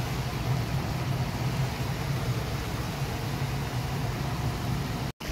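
Steady low roar from the fire under a large kazan of boiling pilaf broth. It cuts off abruptly just before the end.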